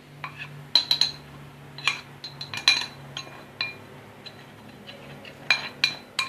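A utensil clinking and knocking against a mixing bowl in irregular, sharp taps as flour is stirred into cake batter. A faint steady low hum runs underneath.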